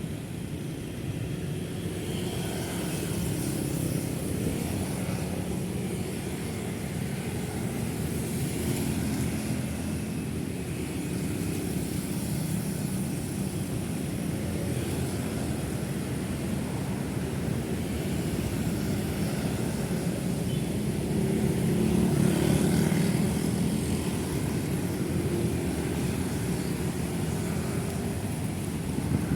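Busy city road traffic: a steady drone of car, bus and motorbike engines and tyres passing. A louder passing vehicle swells up about three quarters of the way through.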